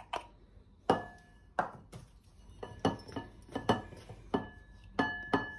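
Ground almond and walnut powder being emptied from the plastic bowl of an electric mini chopper onto a ceramic plate. The blade insert is lifted out and a wooden spatula knocks and scrapes against the bowl, giving about eight sharp knocks, some leaving a short ringing tone.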